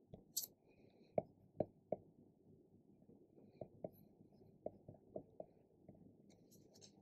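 A dozen or so faint, irregular ticks and taps of a stylus on a pen tablet as an answer is handwritten in digital ink, over a faint low hum.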